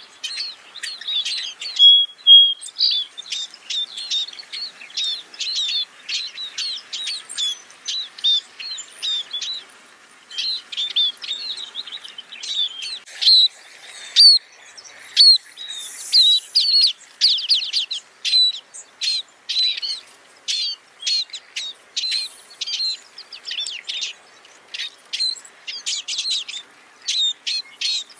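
Scaly-breasted munia calling: a quick run of short, high chirps, several a second, with a brief lull about ten seconds in.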